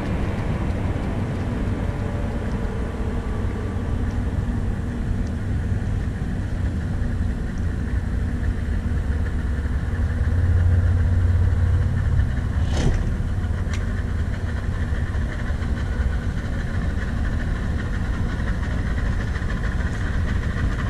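Small boat outboard motor running at idle, with a steady low hum, slightly louder for a couple of seconds as the boat comes in to the shore. Two sharp knocks a second apart come about two-thirds of the way through.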